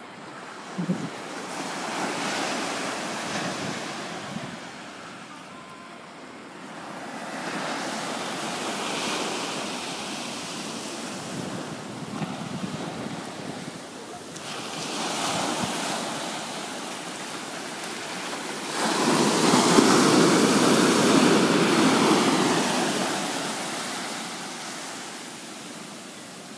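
Ocean surf breaking and washing up a sandy beach, coming in slow swells that rise and fade, the loudest wave about three-quarters of the way through.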